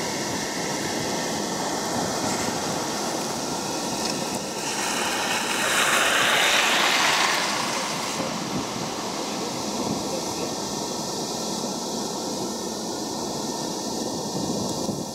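Steady rushing noise with a faint hum running through it, swelling into a louder whoosh about five seconds in and easing back by eight.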